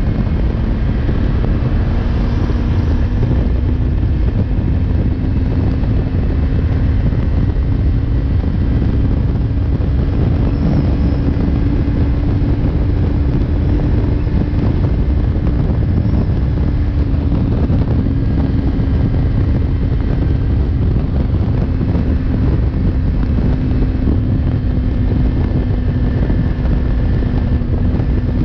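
Yamaha MT-03's parallel-twin engine running at highway speed under heavy wind rush on the microphone. The engine note climbs over the first ten seconds or so as the bike accelerates, then eases slightly as the speed falls back.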